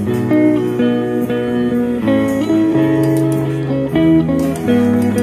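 Instrumental background music: a melody of held notes that change about every half second.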